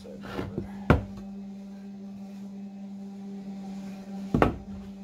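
Wooden boards knocking as they are handled and set down: two sharp knocks, about a second in and near the end, with lighter taps in between, over a steady low hum.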